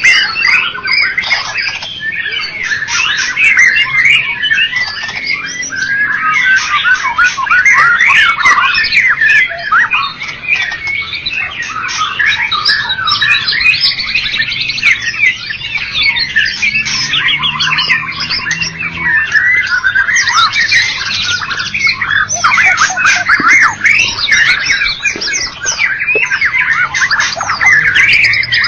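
White-rumped shama (murai batu) singing a long, loud, varied song of fast whistles, trills and harsh notes that follow one another without a break.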